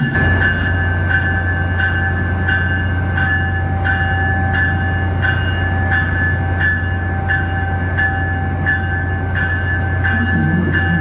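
Train running steadily: a low hum and steady whine with a regular click about every two-thirds of a second.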